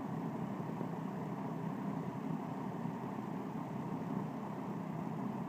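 1971 Lakewood S-23 box fan running steadily on low speed, its metal blades moving air with a low, even whoosh and a faint motor hum.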